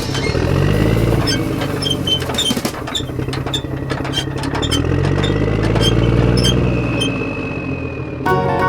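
Vehicle engine revving up and easing back down twice, with light ticks throughout.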